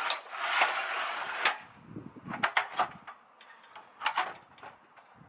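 A burst of rustling noise with clicks, then a scattering of sharp clicks and knocks with a few dull thumps.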